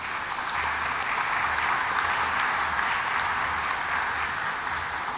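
Audience applauding: a steady patter of many hands clapping that dies down at the very end.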